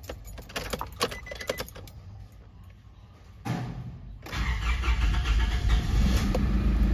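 Light rattling at the ignition, then a brief crank of the starter and a diesel engine catching at once and settling into a steady idle about four seconds in. It is a cold start with the glow plug heated by a direct wire, so the hard-starting engine fires immediately.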